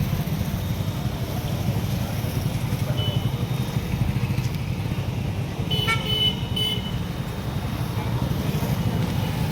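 Vehicle engine idling steadily, with short high-pitched toots from a fitted air horn, once about three seconds in and again about six seconds in.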